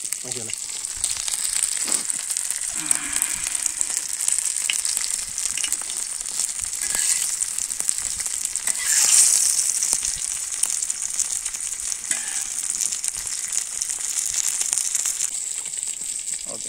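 A whole masala-marinated fish frying in oil on an iron dosa griddle: a steady sizzle with scattered crackles, swelling louder about nine seconds in.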